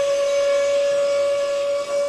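A long, steady whistle-like tone held at one unchanging pitch, rich in overtones, like a synthetic sound effect.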